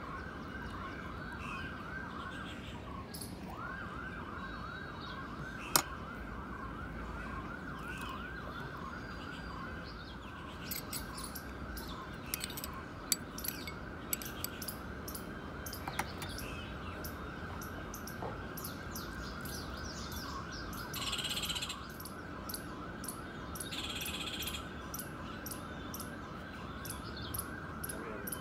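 A continuous high warbling tone that rises and falls several times a second, like a distant siren, breaking off briefly about three seconds in. Over it come scattered light clinks of a steel spoon against a bowl, one sharp clink about six seconds in standing out, and two short hisses later on.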